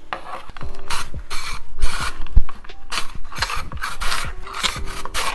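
Peeled russet potato pushed back and forth over a plastic mandoline's julienne blade, a rasping cut with each stroke at about two strokes a second. There are dull knocks against the wooden cutting board, the loudest about halfway through.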